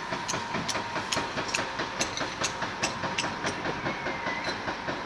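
Machinery running steadily at the bridge works, with sharp clicks or knocks coming about three times a second over a faint steady whine.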